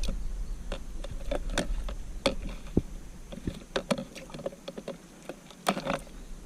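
Irregular knocks and taps of gear being handled aboard a kayak, about a dozen scattered through, the loudest cluster near the end, over a low rumble that drops away about five seconds in.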